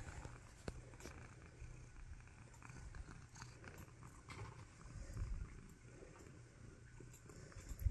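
Orange tabby cat purring while being petted on the head, a low, pulsing purr.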